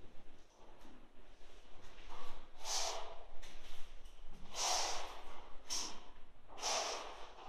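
A person breathing out heavily close to the microphone, three breaths about two seconds apart, each about half a second long.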